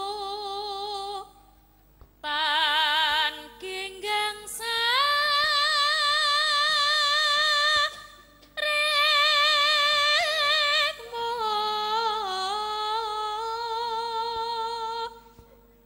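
A pesindhen, a female Javanese singer, sings a solo vocal line through a microphone in long held notes with wide vibrato. She breaks off briefly about a second and a half in and again about eight seconds in, and her pitch steps up about four and a half seconds in. Faint steady tones sound underneath.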